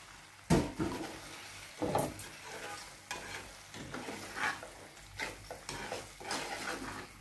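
A metal spoon stirring chunks of cooked beef into thick masala gravy in a clay chatti, scraping the pot in uneven strokes about once a second, over a faint sizzle from the hot pot.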